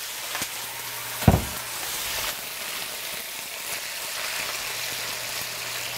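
Sliced carrots sizzling steadily in an electric frying pan, with a little water just added to raise steam. One thud sounds about a second in.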